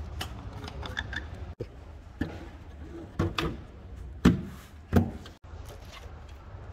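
Short knocks and clicks of hands working in a car's engine bay, then two loud thumps about four and five seconds in as the Mercedes CLA's plastic engine cover is pressed down onto its mounts, over a steady low hum.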